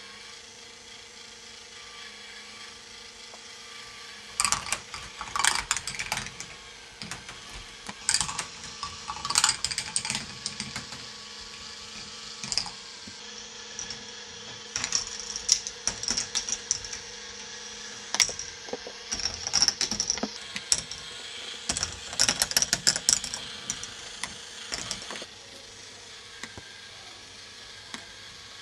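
K'nex ball machine running: a steady motor hum, with bursts of rapid clicking and clattering as plastic balls run along the tracks and lifts. The clatter starts about four seconds in and dies away near the end.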